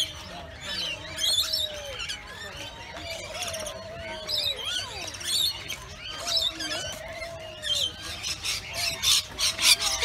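A mixed chorus of aviary birds calling: dense high chirps and squeaks, busiest near the end, over a repeated lower call that rises and falls about once a second.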